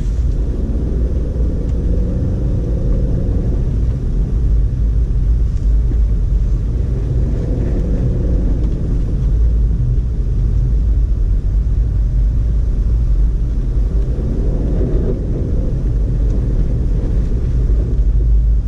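2012 Audi A4 quattro driving through snow: a steady low rumble of engine and tyres, with the engine note swelling a few times.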